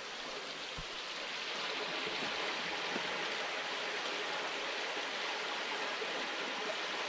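Creek water rushing steadily, swelling a little over the first two seconds.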